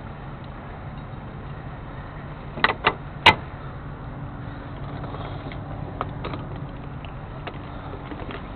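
Tow truck engine running steadily with a low hum while a towed semi tractor is unloaded, with three sharp knocks close together about three seconds in.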